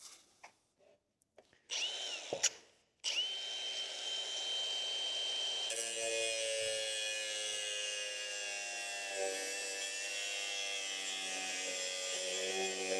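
Milwaukee M18 FUEL 115 mm cordless angle grinder spinning up with a rising whine, stopping abruptly and starting again at once, then running at speed with a steady high whine. About six seconds in the disc bites into aluminium and grinding noise joins the whine as it cuts.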